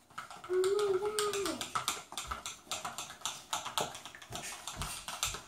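Quick sticky clicks and taps, several a second, from hands squishing and mixing slime in plastic bowls while glitter is shaken from a small tube. A short hummed note from a child's voice comes about half a second in.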